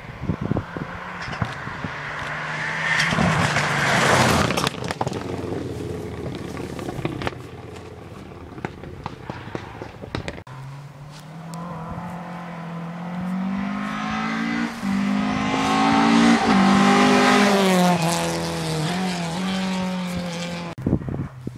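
Two rally cars pass at speed, one after the other, each engine revving hard as it goes by. The first is loudest about four seconds in. The second, in the latter half, rises and falls in pitch with several quick gear changes and is loudest near the end.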